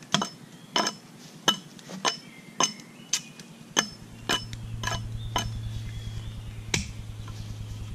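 Hatchet blows on an upright wooden pole, trimming branch stubs off it: sharp knocks with a brief ring, about two a second, then fewer and further apart after about four seconds. A low steady hum comes in about four seconds in.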